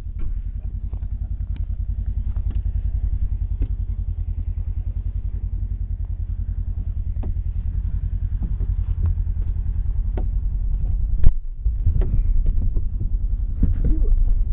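An engine idling steadily with a fast, even low pulsing. About eleven seconds in there is one sharp, very loud bang.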